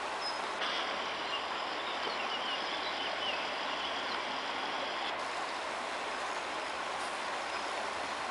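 Steady outdoor background noise, an even hiss and rumble with no clear single source, with a few faint high chirps in the middle.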